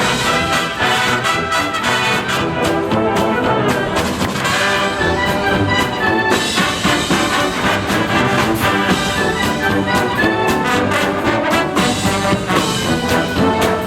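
High-school marching band playing a loud full-ensemble passage. Trumpets and trombones carry the tune over a steady, driving drum beat.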